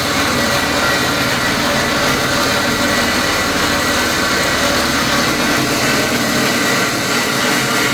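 Old pipe-cutting machine tool running steadily, its motor giving a constant hum with a high whine, while cutting concrete-pump pipe.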